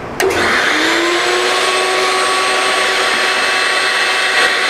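A woodshop machine is switched on about a quarter second in. Its electric motor winds up to speed within a second, then runs steadily with a high whine and a rushing, air-moving noise.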